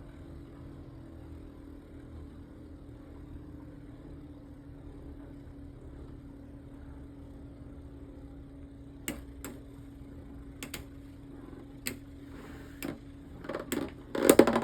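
Beyblade spinning tops whirring in a plastic stadium with a steady hum. From about nine seconds in come single sharp clicks as the tops strike each other or the stadium wall, and near the end a louder plastic clatter.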